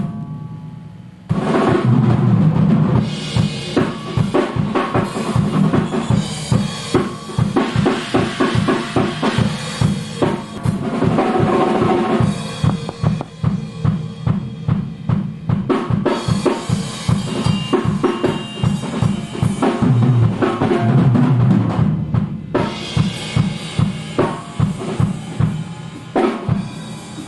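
Ludwig drum kit played fast: a dense run of bass drum, snare and cymbal hits. It starts about a second in and breaks off briefly near the end.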